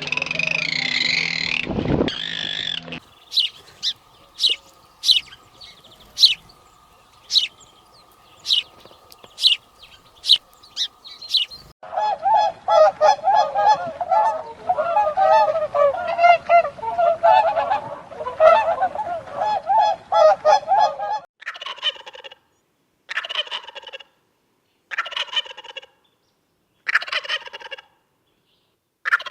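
Birds calling in three stretches: a string of sharp short calls over a faint steady hum, then a dense chatter of many overlapping calls, then about six separate calls a second or so long, each falling in pitch.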